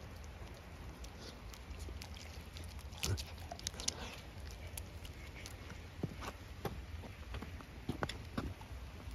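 A large Anatolian shepherd dog sniffing and snuffling at close range, in short bursts with sharp clicks around three to four seconds in and again near the end. Under it are light rain patter and a steady low rumble.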